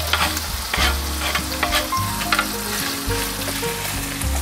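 Baby octopus and chopped vegetables sizzling in a hot non-stick frying pan, with short scrapes and clicks of a wooden spatula stirring them.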